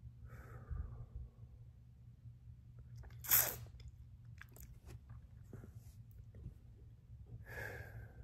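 A man breathing hard through a superhot chili pepper's burn: a long breath out near the start, a sharp, loud burst of breath about three seconds in, small mouth clicks, and another heavy breath near the end.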